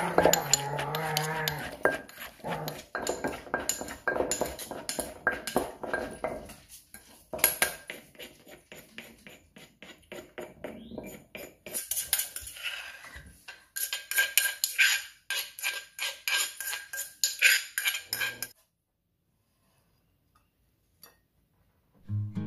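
Wooden pestle pounding vegetables in a clay mortar, with a spoon knocking and stirring among them: a long run of quick knocks. From about halfway, a spoon scrapes and knocks against the tilted mortar as the salad is scooped out, stopping a few seconds before the end.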